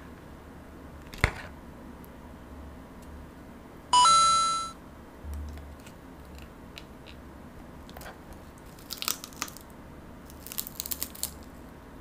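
Crunching bites of crisp deep-fried tangsuyuk (sweet-and-sour pork) being chewed, in short bursts near the end. A single click a little after a second in, and a brief loud electronic tone about four seconds in.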